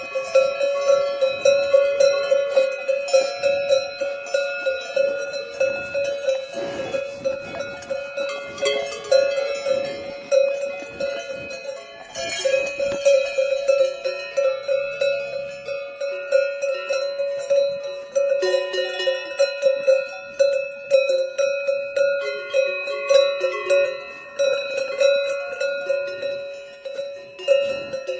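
Several cowbells clanking irregularly, their strikes overlapping and ringing on with a metallic, many-toned clang.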